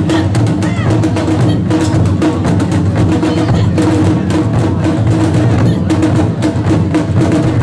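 Taiko ensemble drumming: several players beating small rope-tensioned drums with wooden bachi sticks in a fast, dense, unbroken rhythm, with a deep drum underneath.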